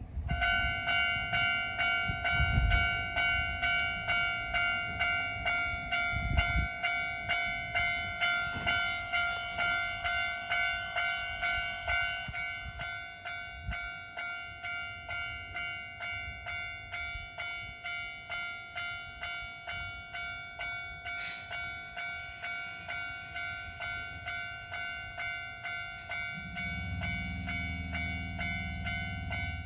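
Japanese level-crossing electronic warning bell ringing, an evenly repeated ding-ding. Near the end a low rumble joins it as a train approaches.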